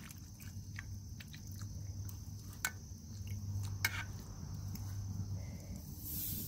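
Metal tongs clicking against a glass baking dish and squelching through marinated chicken gizzards: a few sharp clicks among softer wet sounds. A hiss rises near the end.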